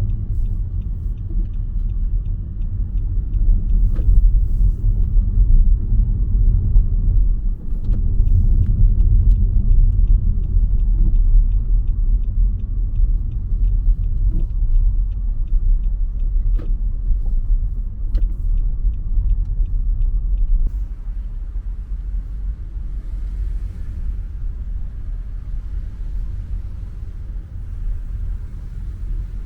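Car driving slowly, heard from inside the cabin: a steady low rumble of engine and road noise with a few sharp clicks and short runs of faint fast ticking. About two-thirds of the way through the rumble drops and a light hiss comes up.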